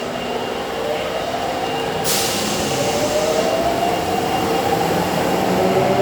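Osaka Metro Tanimachi Line 22 series subway train starting off: a sharp air hiss about two seconds in, then the traction motors' whine rising slowly in pitch as the train picks up speed.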